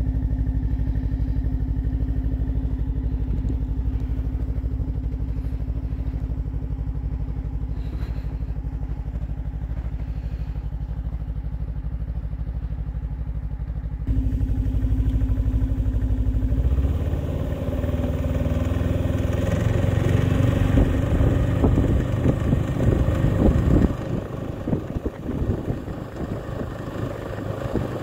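Snowmobile engine running steadily while towing a homemade tyre-roller ski-trail groomer through snow. About halfway the sound changes and turns rougher and more uneven, and the deep rumble falls away a few seconds before the end.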